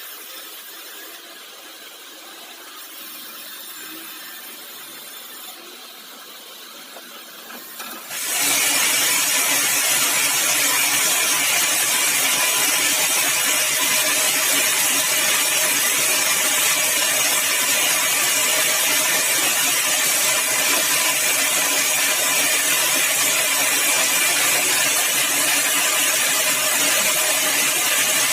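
Sawmill saw cutting a large, dry, hard red balau log. It is faint for about the first eight seconds, then suddenly gets much louder and runs steady, a dense grinding noise with a faint whine through it.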